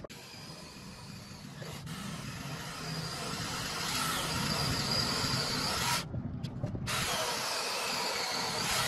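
Cordless mini chainsaw running and cutting through a green branch: a steady motor whine with the chain rasping through the wood, briefly thinning out about six seconds in.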